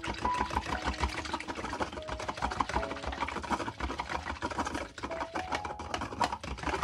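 Small wire whisk beating egg and milk in a plastic container: rapid, continuous clicking and rattling of the wires against the container's sides and bottom.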